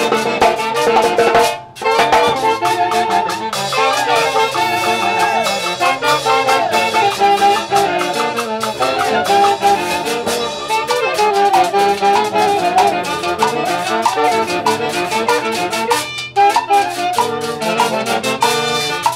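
Brass band music from a festival orchestra, trumpets leading over a steady beat, with short breaks about a second and a half in and again near the end.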